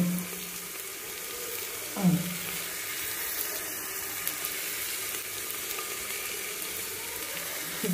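Govindabhog rice frying in ghee in a metal pot on a low flame, a steady sizzle. A short voice sound comes about two seconds in.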